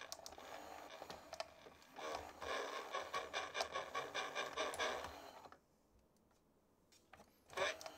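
Battery-operated animated bug-figure toy running underpowered on 2.1 volts from a bench power supply: its speaker plays voice and sound effects with clicks from the moving mechanism. It cuts off abruptly about five and a half seconds in when the power is switched off, and starts again near the end.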